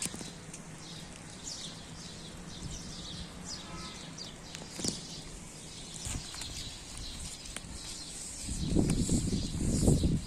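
Small birds chirping in quick, short, falling notes, with a steady hiss of rain underneath; near the end a loud rustling, flapping burst lasting about two seconds drowns them out.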